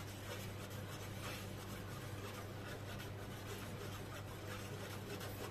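Metal spoon scraping and stirring around an aluminium pot of heating milk, a soft repeated scratching over a steady low hum.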